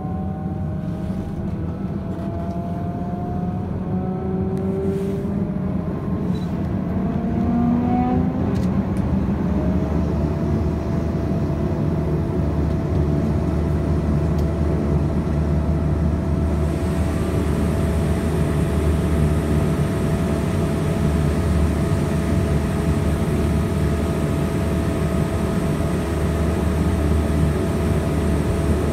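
Turboprop engine of a BAe Jetstream 32 (Garrett TPE331) heard from inside the cabin, spooling up: several whining tones rise in pitch together for the first ten seconds or so, then hold a steady whine over a low drone. About halfway through, a louder high hiss joins in and stays.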